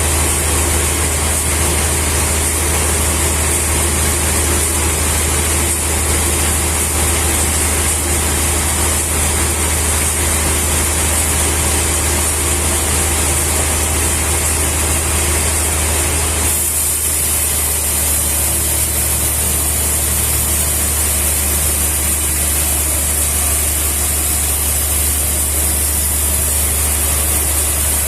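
Steady machine noise, like an engine running, with a deep steady hum beneath a hiss; its tone changes abruptly about sixteen seconds in.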